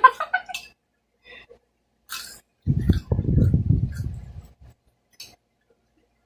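Eating sounds close to the microphone: a short crisp noise about two seconds in, then about two seconds of low, muffled chewing.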